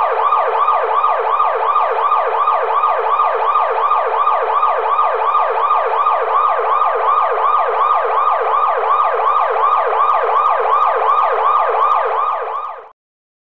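Police car siren in a rapid yelp, sweeping up and down about four times a second. It fades out and stops about a second before the end.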